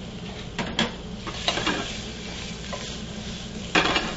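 Shrimp sizzling in hot oil in a stainless steel sauté pan, with a few short scrapes and clinks in the first two seconds. Near the end the pan is tossed, and there is a louder rush of sizzling.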